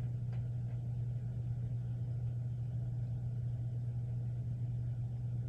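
A steady low hum with faint hiss above it, and a couple of faint clicks just after the start.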